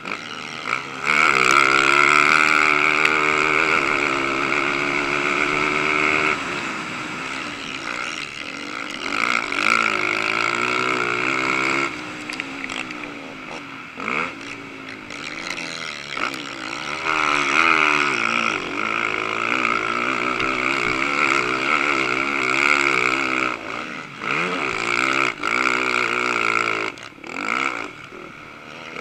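Can-Am DS450 race quad's single-cylinder four-stroke engine at racing speed, its revs rising and falling repeatedly as the throttle is opened and closed. It is at full throttle and loudest for several seconds near the start, backing off at intervals later.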